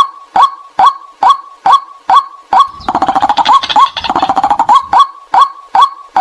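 White-breasted waterhen call recording played as a lure: short, loud, identical 'kwak' notes repeated about twice a second, each dipping slightly in pitch. About halfway through they give way to nearly two seconds of rapid chattering before the steady repeats resume.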